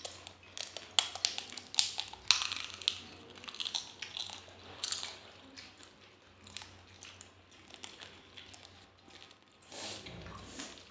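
Crisp golgappas (pani puri) crunching as they are bitten and chewed, a run of short crackles thickest in the first few seconds and then thinning out.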